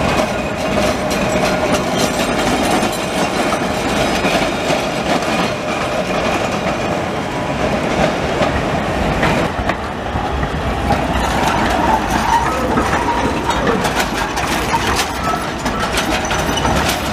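Trams running on street track: a vintage tram's wheels squeal faintly as it takes the curve, and an orange articulated tram passes close near the end, its wheels clacking over the rail joints.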